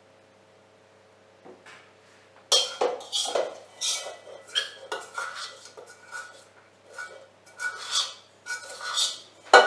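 A utensil scraping and clinking against a stainless steel mixing bowl as the last cookie dough is scraped out. It is a quick run of scrapes that starts about two and a half seconds in and ends in a sharp clank.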